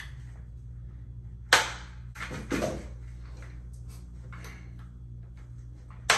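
Gaming chair parts being handled during assembly: a sharp knock about a second and a half in, a few smaller knocks and rattles just after, and another sharp knock near the end, over a steady low hum.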